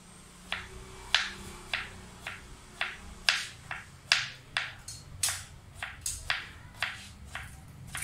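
Knife chopping vegetables on a cutting board: a run of sharp knocks, about two a second at an uneven pace.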